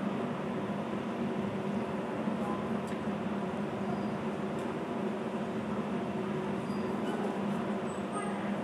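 Steady low hum over constant background noise, with a few faint short high chirps now and then.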